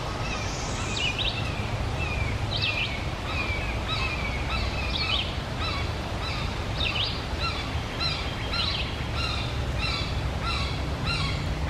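Small birds chirping over and over, short high notes repeating about twice a second with a few sweeping calls among them, over a steady low background rumble.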